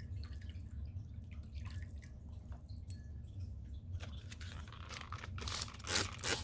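Steady low hum with faint small clicks of handling, then several short bursts of rustling and crinkling, like materials being handled, in the last second or so.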